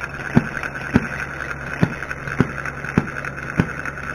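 Model six-cycle single-cylinder engine running slowly, firing with a sharp pop about every 0.6 seconds at a slightly uneven rhythm, over a steady high hum.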